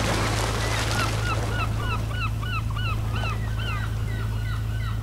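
A gull calling, a quick run of short yelping calls at about three a second that starts about a second in, over a steady low hum.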